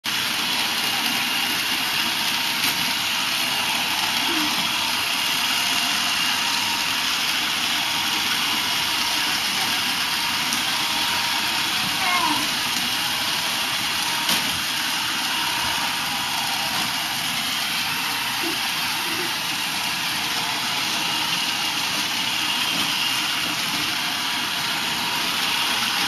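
iRobot Roomba robot vacuum running steadily across a hardwood floor, its motor and brushes giving an even whirring hiss with a faint high whine. A couple of light clicks are heard.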